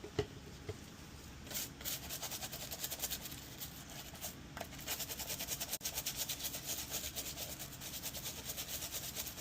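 A circuit board being scrubbed clean with quick back-and-forth rubbing strokes, a dry scratchy hiss that starts about a second and a half in, after a couple of light taps.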